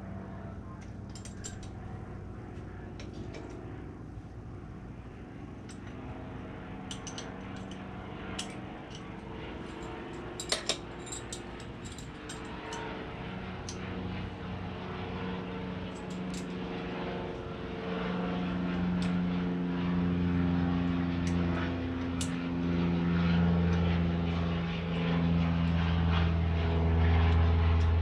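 A low engine drone with a shifting pitch that grows steadily louder, the loudest sound throughout. Over it come scattered small clicks and taps of parts being handled as a motorcycle throttle housing is taken apart, a sharp double click about ten seconds in.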